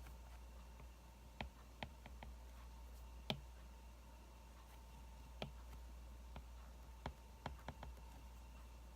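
Wood fire crackling: about a dozen sharp, irregular pops and snaps, the loudest about three seconds in, over a faint steady low hum.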